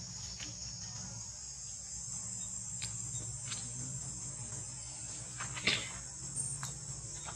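Steady high-pitched insect chorus, with a few faint clicks and one brief louder sound about three-quarters of the way in.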